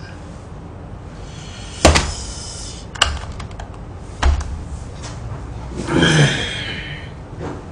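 Handling noise around a desk: three separate knocks and thuds about a second apart as a plastic takeout bowl and utensil are moved and set down, then a longer muffled rustle and creak near the end.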